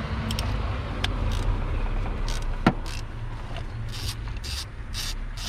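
Hand tools working under the hood: a few metal clicks, a sharp clink a bit under three seconds in, then a run of short rasping strokes about twice a second, like a wrench being worked. A steady low hum runs underneath.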